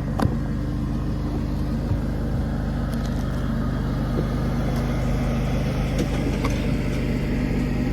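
An engine running steadily at idle, a low even hum, with a few faint sharp clicks over it.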